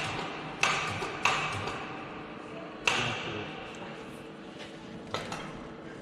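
Sharp metal clanks, steel striking steel, each leaving a short ringing tail. There are four of them, spaced unevenly: about half a second in, a second in, near three seconds, and past five seconds.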